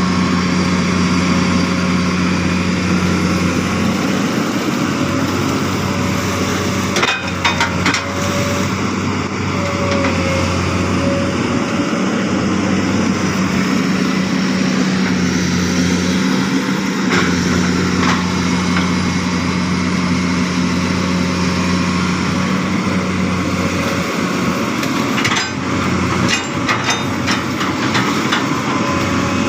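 Heavy machine's engine running steadily under load, with sharp metallic clanks about seven seconds in and again in a cluster near the end.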